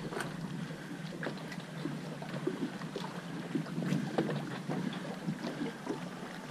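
Water lapping and slapping against a small fishing boat's hull, with wind on the microphone and scattered light knocks and clicks.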